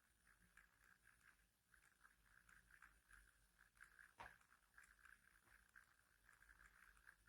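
Near silence: faint room tone with soft irregular ticking and a single click about four seconds in.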